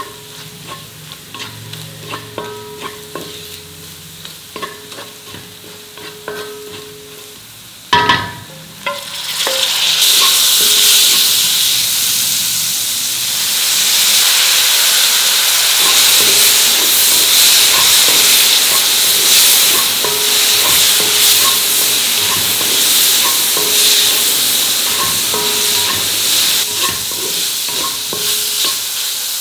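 A spatula scrapes and stirs spiced coconut and onion in a black kadai, with small clicks. About eight seconds in comes a sharp knock, then a loud steady sizzle as the cauliflower florets fry, with the spatula still scraping through it.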